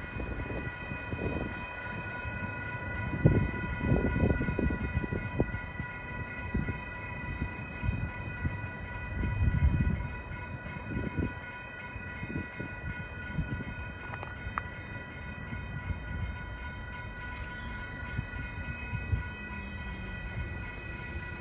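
Railroad grade-crossing warning bell ringing steadily as the rear of a freight train clears the crossing, over an uneven low rumble that rises and falls in gusts.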